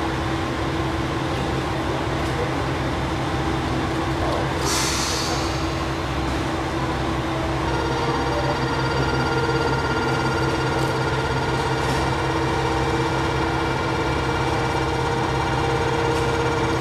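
JR Shikoku 2000 series diesel railcar idling at a standstill, its diesel engine running with a steady low hum. A short hiss comes about five seconds in, and a steady high ringing tone joins about eight seconds in.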